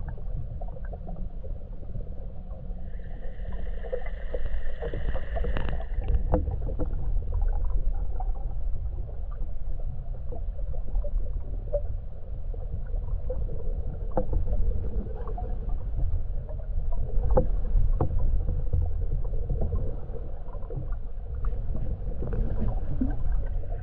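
Muffled underwater ambience through a camera's waterproof housing: a steady low rumble with scattered sharp clicks and knocks. A faint high whine sounds for about three seconds near the start.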